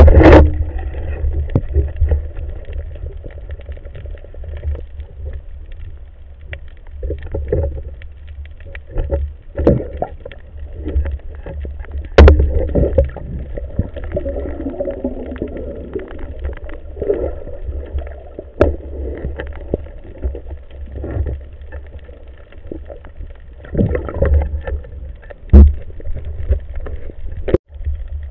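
Muffled underwater water noise around a swimming diver: a steady low rumble with swells of gurgling water movement, broken by a few sharp clicks and knocks.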